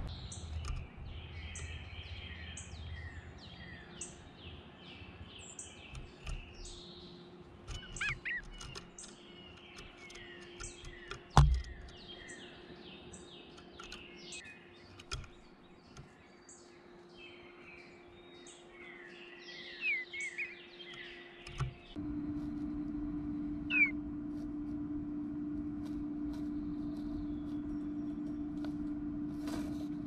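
Songbirds chirping and warbling in short overlapping phrases, with a single sharp tap about a third of the way through. About two-thirds in, the birdsong drops away and a steady low hum takes over, with one short chirp.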